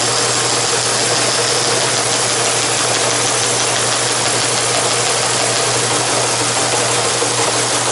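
Teletype Model 19 machines running together: the transmitter-distributor reads a punched tape of alternating R and Y characters, the standard RY test pattern, and the page printer types them out. This makes a dense, steady mechanical clatter over the hum of the motors. The clatter cuts off at the very end, leaving the motor hum.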